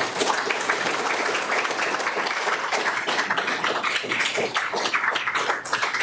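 Audience applauding: many hands clapping steadily, thinning out near the end.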